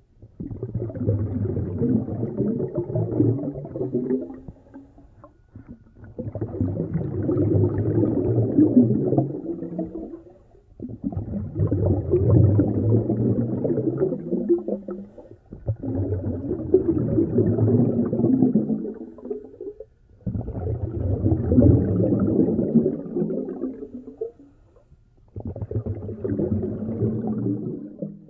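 A snorkeler breathing through a snorkel, heard muffled underwater: about six slow breaths at an even pace, each around four seconds long, with a short pause between them.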